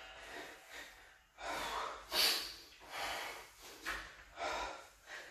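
A man breathing hard during a knee-to-chest abdominal crunch exercise: a series of about six short, forceful breaths, one with each rep, starting about a second and a half in.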